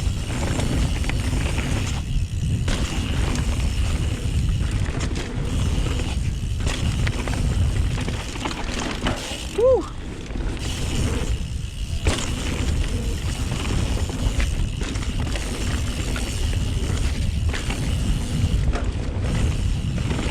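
Mountain bike (YT Jeffsy) riding a downhill trail: a constant low rumble of tyres on dirt, with the drivetrain and frame rattling and the rear hub ratcheting as it coasts. About halfway through comes one short squeal that rises and falls in pitch.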